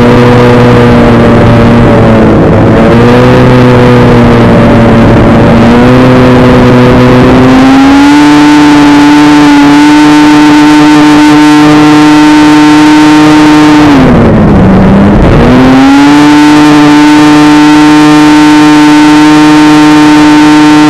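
Outlaw 600 racing snowmobile's two-stroke engine running hard at high revs, very loud. Its pitch climbs about a third of the way through and holds steady. Around two-thirds through it drops sharply for a second or so, then climbs straight back up.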